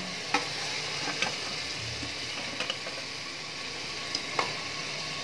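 Spiced masala paste sizzling steadily in hot oil in a pressure cooker as mutton pieces are tipped in, with a few sharp metal clicks of spatula and plate against the pot.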